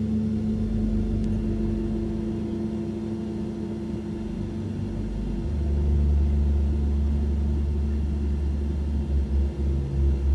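Low droning music: held bass and mid-range notes, with the bass shifting about five seconds in and pulsing near the end.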